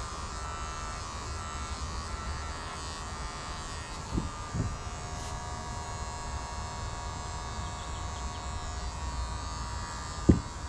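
Electric hair clippers running with a steady buzz. A couple of soft low thumps come about four seconds in, and a louder thud comes near the end.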